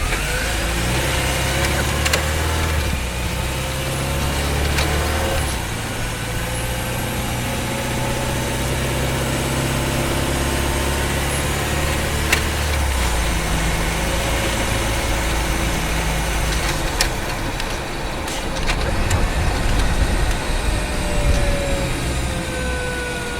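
Honda Freed Hybrid's petrol engine running under the bonnet while the car drives in town, its note changing about six seconds in and again about thirteen seconds in. A whine from the hybrid drive glides up and down in pitch over it.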